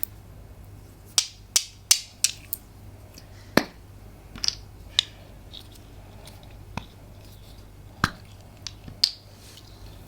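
A series of sharp, irregular clicks and pops, about a dozen, some brighter and higher than others, the loudest a cluster around the second second and another around the ninth.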